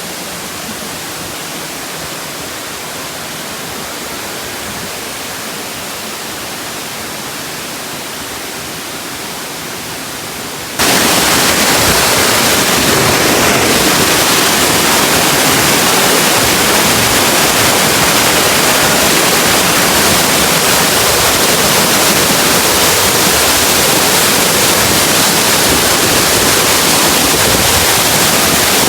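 Waterfall rushing with a steady, even roar of falling water, which jumps suddenly much louder about eleven seconds in and stays loud.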